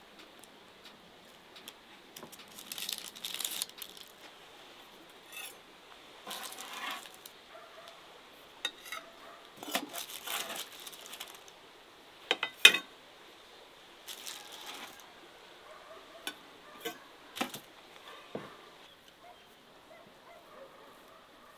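Scattered light clicks, clinks and rustles of pies and utensils being handled on a metal tray and serving plates, coming irregularly every second or two.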